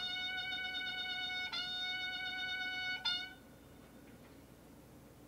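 Ceremonial military brass call played on a bugle-like horn: two long held notes on the same pitch, each about a second and a half, then a short clipped note, with another note starting near the end.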